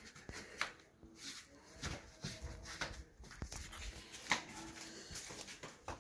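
Light sparring with boxing gloves: a string of irregular short thuds and scuffs from gloved punches and kicks landing and feet moving on a tiled floor, the sharpest about half a second in and again just after four seconds.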